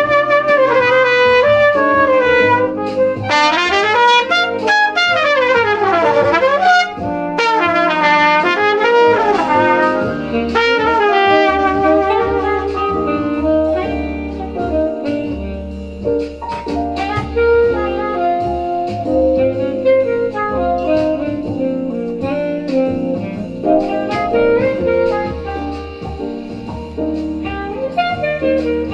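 Trumpet improvising a jazz line over a backing track with a bass line, with quick runs up and down the horn a few seconds in, then more held notes.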